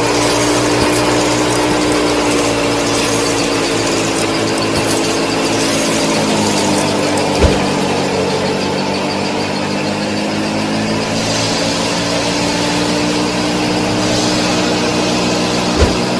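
A small motor running with a steady whine; its pitch drops in the middle and rises again, and two short knocks come about halfway through and near the end.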